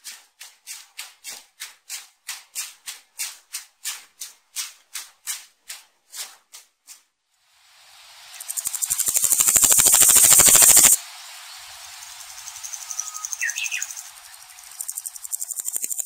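Evenly spaced rasping pulses, about three a second, stop about seven seconds in. Then a locust's buzzing rattle swells to a loud peak around ten seconds, drops suddenly, and carries on as fainter raspy pulsing.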